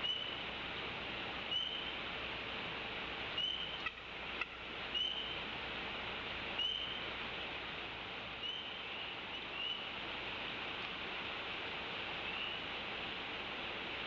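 A small animal calling in short, high chirps that rise slightly, one every second or two, over a steady hiss. A few soft knocks come about four seconds in.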